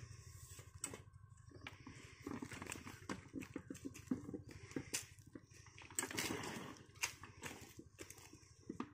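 Scattered knocks, clicks and scrapes as a pump's ribbed suction hose is handled and fitted onto a borehole pipe, over a low steady rumble.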